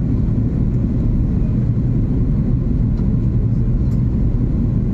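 Airliner cabin noise: the steady low rumble of the engines and airflow heard from inside the passenger cabin.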